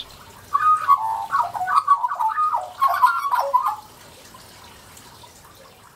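Australian magpie warbling: a run of liquid, rapidly shifting notes from about half a second in until nearly 4 seconds in.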